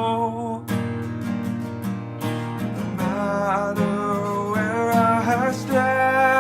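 Guitar music: strummed chords under a higher melody line that slides and wavers in pitch.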